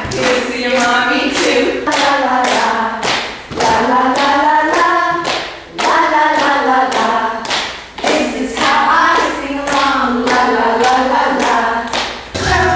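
A group of adults singing a simple children's song together without accompaniment, keeping time with their hands at about two beats a second.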